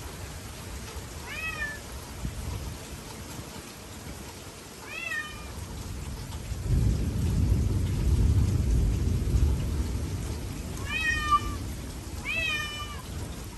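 A cat meowing four short times over steady rain. About seven seconds in, a long roll of thunder rumbles for several seconds, louder than the meows.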